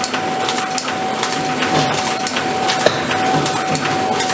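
Fully mechanical butter filling, forming and wrapping machine running: a steady whine under a regular, repeating cycle of metallic clicks and clatters from its mechanism as it forms and wraps packets.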